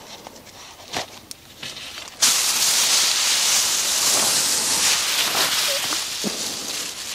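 Foil survival blanket crinkling loudly as it is lifted and spread out. The harsh rustle starts suddenly about two seconds in and fades near the end, after a few faint clicks of handling.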